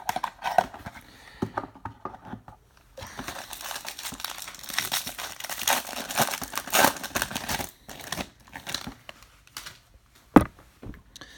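A trading card pack's wrapper being torn open and crinkled by hand, with scattered rustles at first, then a few seconds of steady crinkling. There is one sharp tap near the end.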